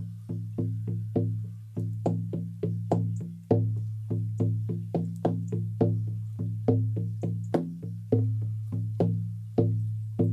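16-inch buffalo-skin shamanic frame drum with an ash frame, struck steadily with a firm beater at about three beats a second. Each stroke is a deep ringing boom that carries on under the next, a rich, thick sound from the very thick skin. The last strike rings out at the end.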